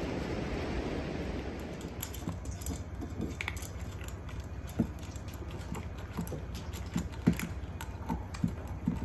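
Cats eating dry food: irregular small crunches and clicks of kibble, a few a second, starting about two seconds in. Wind noise rumbles on the microphone at the start.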